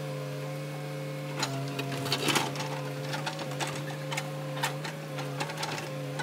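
Backhoe loader's engine and hydraulics running in a steady drone while its bucket works against a large boulder, with scattered clanks and knocks, the loudest a little past two seconds in.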